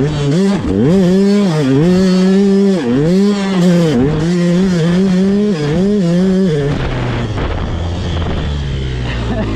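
KTM 200SX two-stroke motocross engine on and off the throttle through sand whoops, its revs rising and falling many times in quick succession. About two thirds of the way in the revs drop away to a lower, rougher note.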